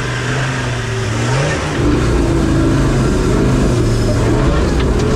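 Off-road vehicle's engine pulling hard under load on a steep climb. Its note holds steady, rises about a second and a half in, then runs louder and rougher from about two seconds on.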